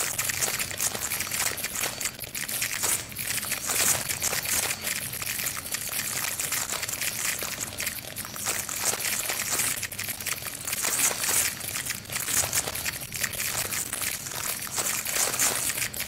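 Dense, irregular crackling and trickling noise, steady in level, made of many tiny crisp clicks.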